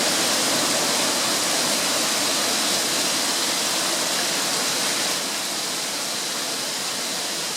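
Heavy rain pouring down, a steady hiss that eases slightly about five seconds in.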